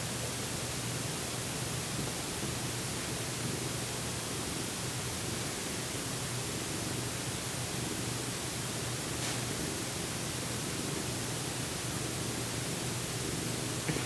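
Steady, even hiss with a faint low hum underneath, unchanging throughout; no distinct event.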